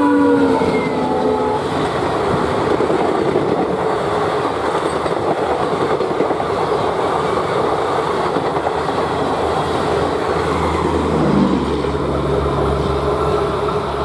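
WDM-3D diesel locomotive's horn trailing off in the first second or two as it passes, then the steady rush and rumble of Garib Rath coaches running past at speed on the rails. A low hum joins in near the end.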